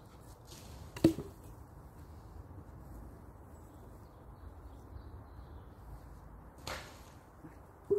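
A thrown wooden stick landing with a sharp knock about a second in. A brief rustle comes near the end, and a second, smaller knock right at the end.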